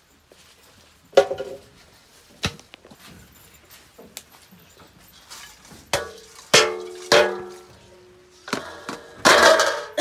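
A large metal basin being knocked and banged to empty it of leftover feed, each knock ringing briefly like a struck bowl. The knocks come about a second in and about two and a half seconds in, then more often in the second half, with the loudest near the end.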